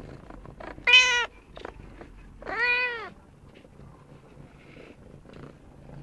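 Snowshoe cat meowing twice: a short call about a second in, then a longer call that rises and falls in pitch. She is demanding attention, in a voice her owner likens to a baby alligator's.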